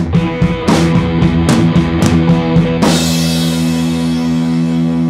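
Background rock music with drum kit and guitar. About three seconds in the drumming stops on a crash and a held chord rings on.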